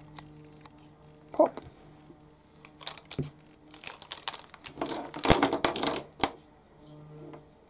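Hands handling plastic marker pens and paper on a wooden desk. There are a couple of light clicks, then a longer burst of clatter and rustling about five seconds in.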